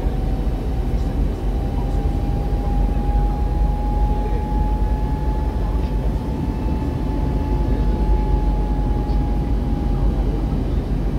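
Steady cabin noise of an Airbus A320neo airliner in flight on approach: a dense low rumble of engines and airflow, with a faint whine that rises slightly in pitch over the first few seconds and fades out near the end.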